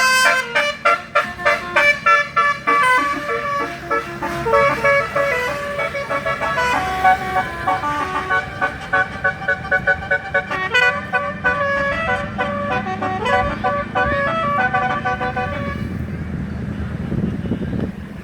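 Basuri telolet bus horn playing a melody of many stepped notes, short and choppy at first and then a longer tune. It stops near the end, leaving the bus engine's low rumble, which grows louder.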